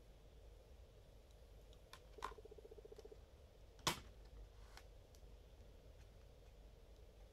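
Quiet handling of Blu-ray discs in a SteelBook case: a few faint clicks, and one sharp click about four seconds in as a disc is pressed on the case's plastic centre hub.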